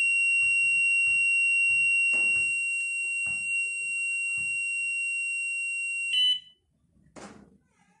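A homemade fire alarm's electronic buzzer sounds one continuous high-pitched tone, set off by the temperature rising above normal at its LM35 sensor. About six seconds in it cuts off with a short chirp, and a brief rustle follows.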